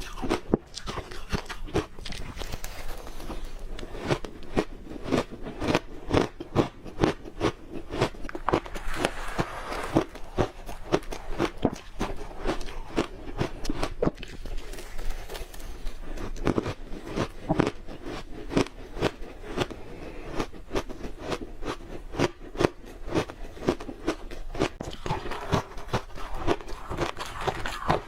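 Crunchy red ice being bitten and chewed close to the microphone: a dense, irregular run of sharp crunches, several a second.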